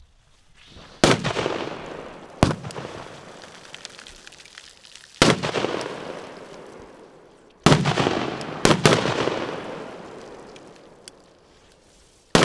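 Small firecrackers going off in the water: about seven sharp bangs at uneven intervals, two of them in quick succession past the middle, each trailing off in a long echo.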